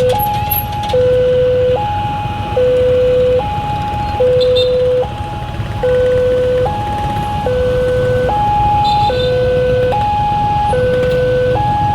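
Railway level-crossing warning siren sounding a two-tone alarm, switching steadily between a low and a higher tone, each held just under a second, over a steady low rumble. It signals that a train is approaching and the crossing is closing.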